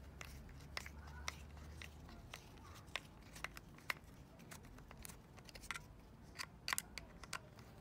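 Faint, irregular small clicks and creaks of a screwdriver turning a Torx screw out of an aluminium EGR venturi pipe housing.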